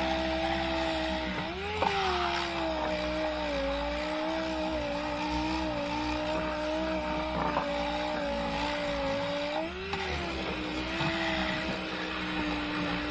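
Power sander running on a plywood boat hull: a steady motor whine with a gritty sanding hiss. The pitch wavers and rises briefly twice, about a second and a half in and near the end.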